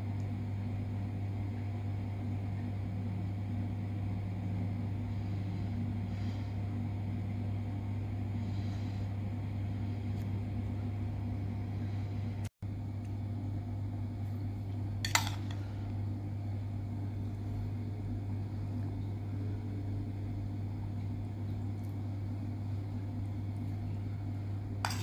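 Steady low mechanical hum, like a fan or motor running, with one short sharp clink a little past halfway through.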